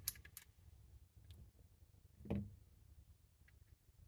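Quiet handling of a small plastic charging case: a few sharp clicks near the start as a small Torx screwdriver works its screws, faint ticks after, and a soft thump about two seconds in.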